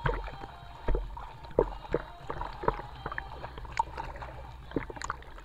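Pool water sloshing and splashing right against an action camera held at the surface, with irregular slaps and bumps over a low rumble of water moving against the mic.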